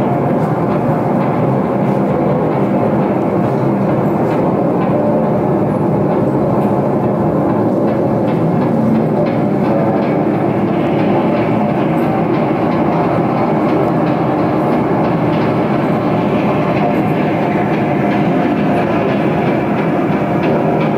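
Live electronic noise music from synthesizers and electronics: a loud, continuous, dense mass of layered steady tones and noise with no breaks. About halfway through, a brighter hissing upper layer comes in.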